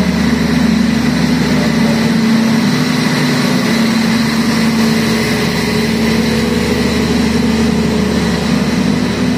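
Diesel-electric locomotive engine idling steadily with a constant low hum.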